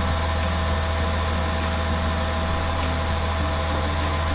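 BMW 135i (E82) turbocharged straight-six idling steadily, a low hum with faint ticks a little over once a second.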